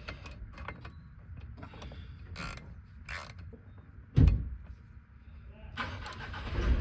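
Hand ratchet wrench clicking as the bolts holding a BMW E46's differential are run in, with scattered metal clicks and one loud knock about four seconds in. A steady rushing noise starts near the end.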